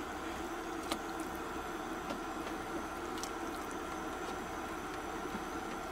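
A steady hum with a few faint clicks, typical of a kitchen appliance running while cooking.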